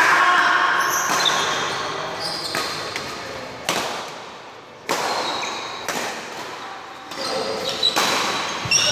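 Badminton rally in a large hall: sharp racket strikes on the shuttlecock, a second or more apart, each trailing off in the hall's echo, with sneakers squeaking on the court floor between hits.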